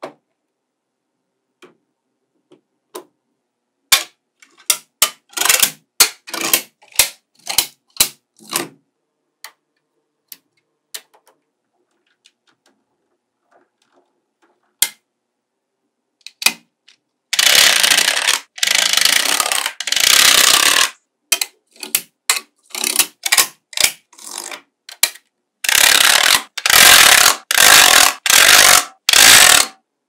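Small magnetic balls clicking and snapping together as strips of them are handled and pressed into place, in sharp separate clicks. Twice the clicks give way to long stretches of dense rattling, several seconds each, the second broken into four bursts near the end.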